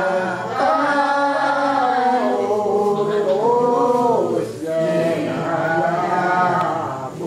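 Unaccompanied voices singing a slow Kaharingan worship hymn from a songbook, in long drawn-out notes that slide up and down in pitch, with a short break about four seconds in.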